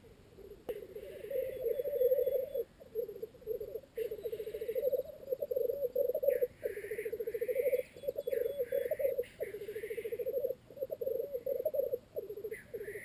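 Male black grouse courtship display: a continuous low bubbling, cooing song (rookooing), with several short hissing calls over it. It begins about half a second in.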